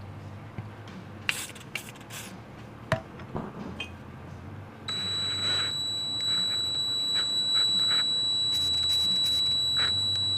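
Power drill running for about five and a half seconds with a steady high-pitched whine, drilling out a stripped bolt hole in a steel steering spindle so it can take a helicoil. A few light clicks and knocks come before it starts, about halfway in.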